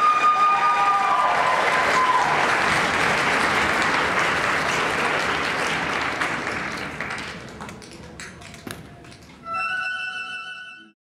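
Audience applause with a few whistles near the start, fading away after about seven seconds into scattered claps. A short held musical chord sounds near the end and cuts off suddenly.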